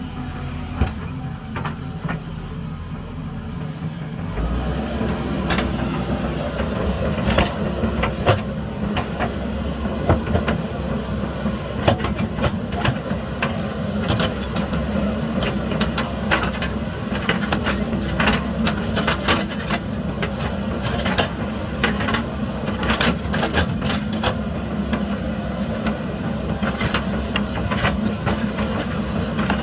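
JCB backhoe loader's diesel engine running steadily under load, with frequent sharp clanks and knocks of the bucket and arm working concrete and mud. The clanking grows busier after the first several seconds.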